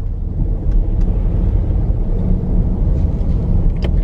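Steady low rumble of engine and road noise inside the cabin of a Dodge Durango R/T, with its 5.7-litre Hemi V8, driving on a snow-covered road. A single sharp click comes just before the end.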